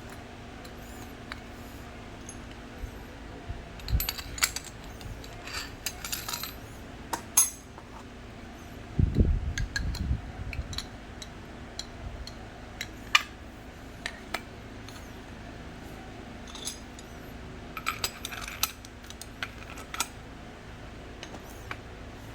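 Scattered metallic clinks and taps of tools and metal parts being handled, with a heavier knock about nine seconds in.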